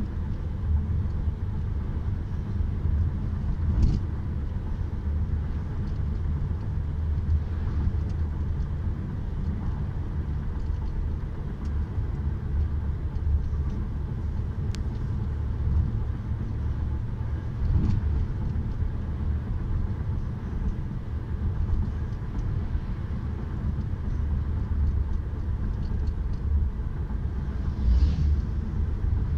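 Steady road rumble and tyre noise of a car driving at highway speed, heard from inside the cabin. A brief louder swish comes near the end.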